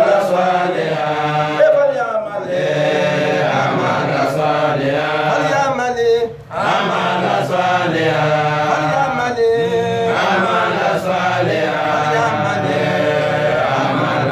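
A man's voice chanting a religious recitation in long, held, melodic lines, with one short break for breath about six seconds in.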